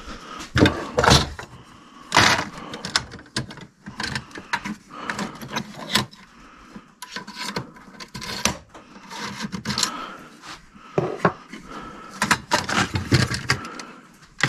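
Irregular knocks, clunks and scraping of objects being handled and shifted about.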